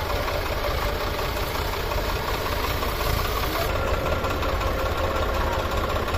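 Swaraj 744 FE tractor's three-cylinder diesel engine running steadily.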